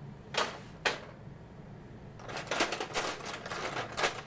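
Small hard clicks and clattering from the parts of an opened portable radio being handled: two sharp clicks in the first second, then a rapid run of clicks and rattles from about halfway through.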